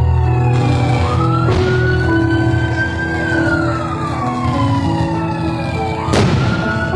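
A siren wailing, its pitch rising and falling in slow sweeps, over music with held notes. A sharp crack comes about a second and a half in, and a louder one near the end.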